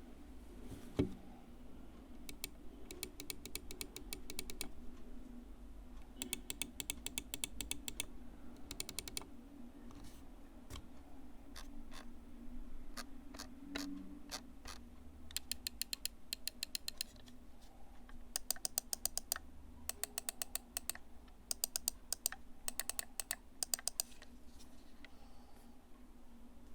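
Lamzu Atlantis OG Pro gaming mouse being clicked or scrolled: repeated bursts of rapid, evenly spaced ticks, each burst lasting one to two seconds, over a faint steady hum.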